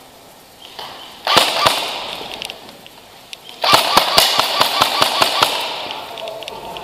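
Airsoft guns firing: a short volley about a second in, then a longer string of rapid shots at about five a second from about three and a half seconds in.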